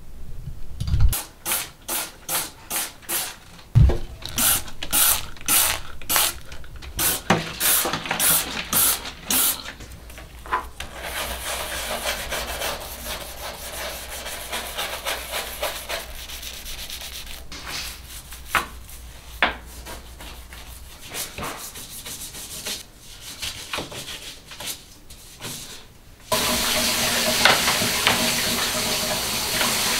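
Scrubbing strokes on the bathtub, about two a second at first, then a steadier rubbing hiss. About four seconds from the end a handheld shower head is turned on and sprays a steady stream of water into the tub.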